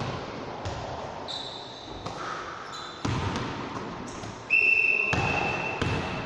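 A ball bouncing and thudding on a sports hall floor, several separate knocks with hall echo. About four and a half seconds in, a loud high steady tone starts and holds to the end.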